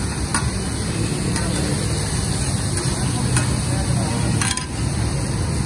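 Chopped offal and meat frying in butter on a large flat griddle (tawa), sizzling steadily, with a few sharp metal taps of the spatula against the griddle as it is stirred.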